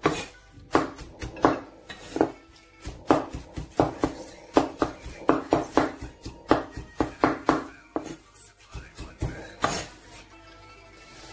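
Cleaver chopping chicken and pork into mince on a round wooden chopping block, sharp strikes about two a second that stop near the end.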